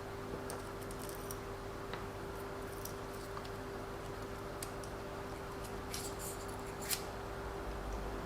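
Small ball bearings being fitted by hand onto an RC car's drive-train parts: faint scattered clicks and taps of small metal pieces, the sharpest about six and seven seconds in, over a steady hum.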